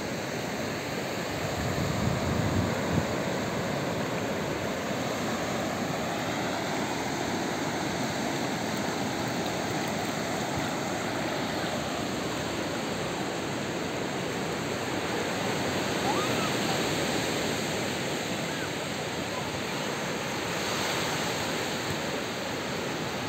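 Ocean surf on a sandy beach: a steady rush of small breaking waves and water washing up over the flat wet sand.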